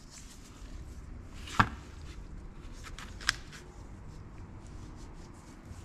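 Workbench handling sounds from a putty knife and a sludge-caked felt furnace filter on a cardboard sheet: one sharp tap about a second and a half in, a smaller one a little past three seconds, and faint rustles and ticks between.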